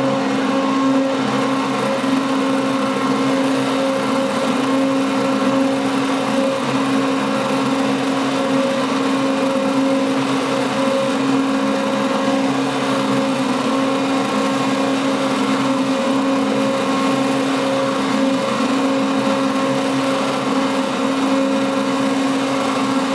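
Handheld stick blender running steadily in thick cream-soap batter, with a steady motor hum, mixing the oils and lye toward trace.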